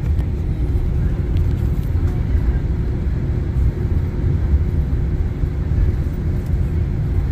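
Steady low rumble of a jet airliner heard from inside the cabin while it moves on the ground: engine noise and wheels on the pavement, with no rise or fall.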